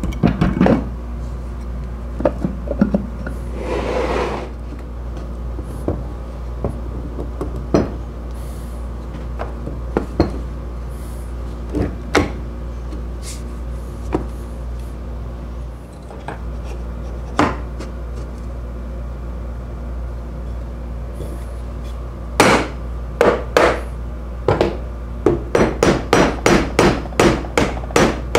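Soft-faced mallet tapping the cast end bell of an electric motor to seat it on the housing: a quick run of sharp taps, about three a second, through the last six seconds. Before that there are scattered single knocks and clicks of the motor parts being handled.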